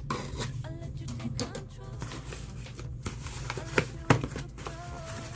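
Cardboard and plastic packaging of a jump starter being handled and rustled, with two sharp clicks about four seconds in.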